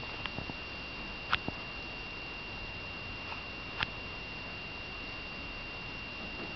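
Quiet room tone with a faint steady high-pitched whine and a few small clicks and knocks, the sharpest about a second and a half in and another near four seconds.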